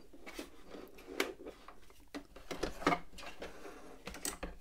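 Handling noises at a sewing machine that has stopped: a few short clicks and rustles of fabric and thread as the sewn cloth is drawn out from under the presser foot and the threads pulled free.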